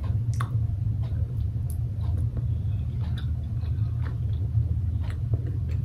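Mouth chewing a soft, chewy mochi, with scattered small wet clicks, over a steady low rumble.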